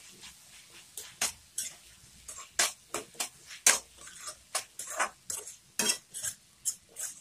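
Metal spoon scraping and clinking against a steel kadai while stirring diced potatoes with spices, in irregular strokes about two a second.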